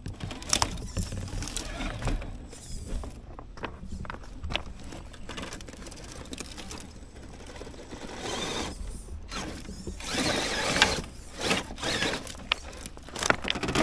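A Yikong YK4083 1/8 RC crawler driving over loose beach pebbles: stones clicking and crunching under the tyres, with the whirr of its geared drivetrain. There are louder spells of crunching about eight and ten seconds in.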